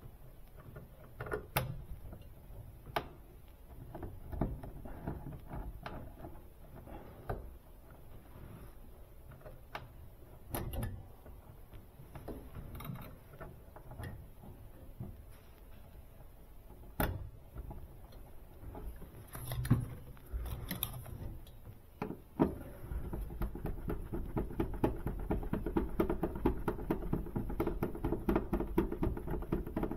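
Scattered clicks and knocks of screws, tools and sheet-metal parts as a condenser fan motor is fastened into a Sub-Zero refrigerator's machine compartment. About two-thirds of the way through, a steady, fast mechanical rattle starts and keeps going.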